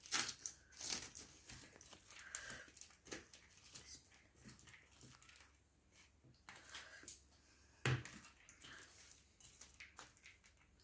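Fingers pressing and mixing cooked rice on a stainless steel plate: faint, irregular squishing and scraping with small clicks, and one sharper knock about eight seconds in.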